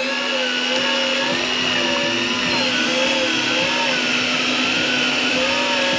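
Electric deep-drop fishing reel's motor running steadily as it winds in line, a high whine over a low hum, with a middle tone that wavers up and down.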